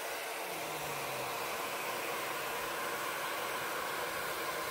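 Steady hiss of steam from a steam locomotive, heard from its tender behind the cab.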